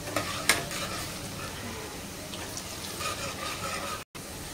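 Sliced onions sizzling as they deep-fry in hot oil in a pressure cooker, being fried until light brown. A steel ladle stirs them and clicks against the pot a couple of times in the first second.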